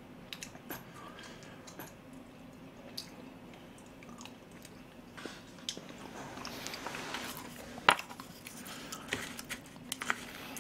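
Quiet eating sounds of rice porridge: soft chewing and wet mouth noises, with scattered light clicks of a plastic spoon and chopsticks against plastic takeout tubs, one sharper click about three-quarters of the way through.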